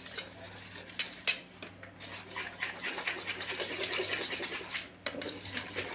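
Wire whisk beating a thick coconut-and-peanut-butter batter in a stainless steel bowl: quick, rapid scraping and clinking strokes against the metal, with a brief pause about five seconds in.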